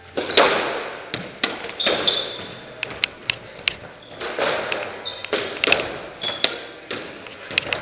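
A squash rally: the ball being struck by rackets and smacking off the court walls over and over, each hit sharp and followed by an echo in the court. Short high squeaks, likely court shoes on the wooden floor, come in between.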